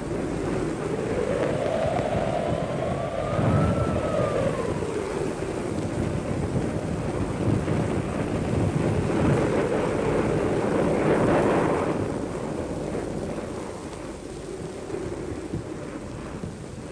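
Storm wind howling over a steady rush of noise, its whistling pitch rising and falling, most clearly a few seconds in.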